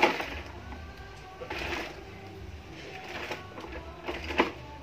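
Plastic toy vehicles being handled and set down, knocking and clattering four times, with the sharpest knocks at the start and near the end.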